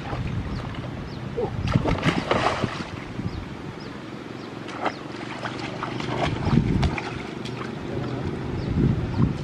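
Water sloshing and splashing, with scattered light knocks and wind on the microphone.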